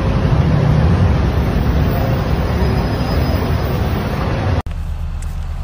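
Loud street traffic noise: a steady rumbling hiss that gives way abruptly, about four and a half seconds in, to a quieter low road rumble.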